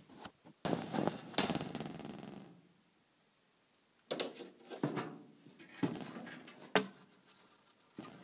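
Bursts of rustling and scraping with a few sharp knocks: handling noise around a reptile enclosure with wood-chip substrate as a tegu is put back inside.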